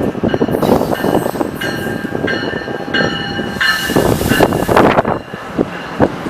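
A train passing close by, rumbling steadily. Through the middle, high-pitched tones sound in several short runs one after another, then fall away near the end.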